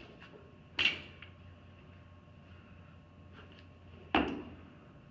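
Two sharp knocks, one about a second in and one near the end, each ringing briefly, with a few faint clicks between.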